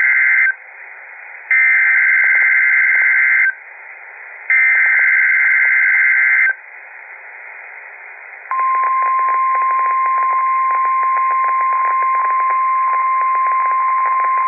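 NOAA Weather Radio Emergency Alert System signal marking a routine weekly test, heard over a radio receiver with static. The buzzing two-pitch digital header sounds in three bursts of about two seconds, a second apart. A couple of seconds of hiss follow, then the steady weather radio warning alarm tone starts about eight and a half seconds in.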